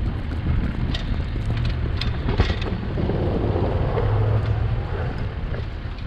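Strong blizzard wind buffeting the microphone: a loud, gusting low rumble with no words, and a few faint ticks in the first half.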